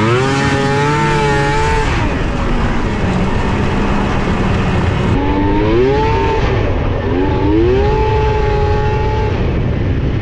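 2001 Yamaha SX700R snowmobile's three-cylinder two-stroke engine revving hard under acceleration three times, its pitch climbing steeply and holding high each time before dropping back.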